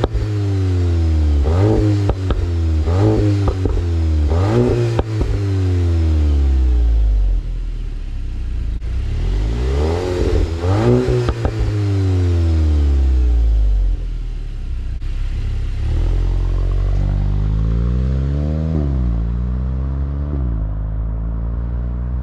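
A stock 2022 Volkswagen GTI's turbocharged 2.0-litre four-cylinder, heard at the tailpipes, revved in several short blips and then in longer climbs that drop off sharply. In the second half the car pulls away, climbing and falling with each quick DSG upshift as it fades into the distance.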